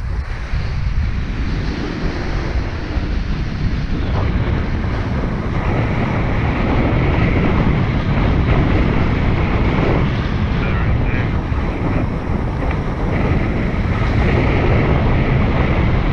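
Wind rushing over the camera microphone of a paraglider in flight: a loud, steady low rumble with hiss, a little louder from about six seconds in.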